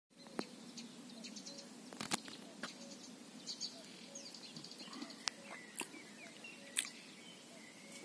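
Small birds chirping and trilling, with a few gliding calls, over a quiet outdoor background. Sharp clicks come now and then.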